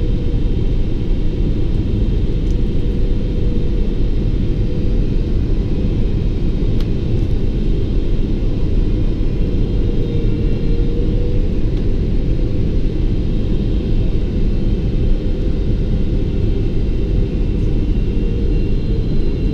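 Steady, loud cabin rumble inside a Boeing 777 descending on final approach, with a faint high whine above it.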